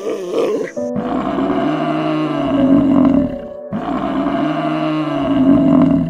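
Buffalo bellowing: two long, low calls, each cut off abruptly, over background music.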